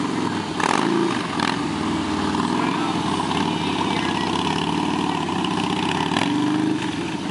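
Harley-Davidson V-twin motorcycle engine running steadily at low revs as the bike rolls slowly by.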